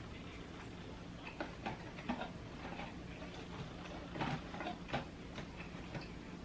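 Close-miked chewing and mouth sounds of someone eating Chicken McNuggets: irregular soft clicks and smacks, bunched most thickly through the middle, over a steady low hum.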